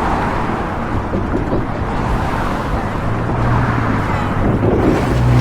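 Busy city street traffic: a steady wash of engine and tyre noise. A low, steady hum from a nearby vehicle's engine comes in about three seconds in and returns near the end.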